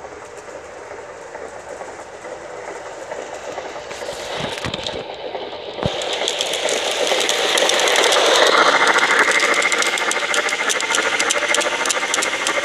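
MTH large-scale model 4-6-6-4 Challenger locomotive and its train running on garden-railway track, getting louder as it comes toward and past, loudest about two-thirds of the way in. The wheels click rapidly over the rail joints, with a steady hiss.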